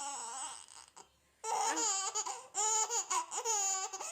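Six-month-old baby laughing in high-pitched squealing bursts, with a short pause about a second in.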